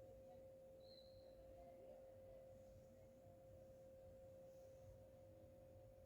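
Near silence with one faint, steady, unwavering hum.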